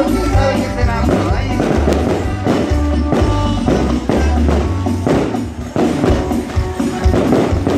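Live band music over the stage PA, heard from among the audience: a steady beat with a deep bass line changing note about every half second, and percussion.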